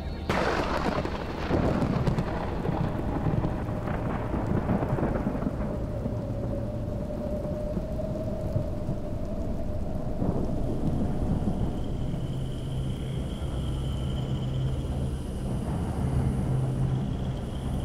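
A thunderclap cracks right at the start and rolls on as long rumbling thunder over steady rain, swelling again a few times. Faint steady tones come in about twelve seconds in.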